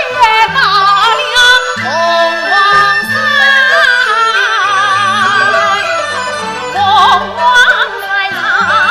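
Yue opera singing: a female voice sings a lyric line with wavering vibrato over steady traditional instrumental accompaniment, with a few sharp percussion clicks.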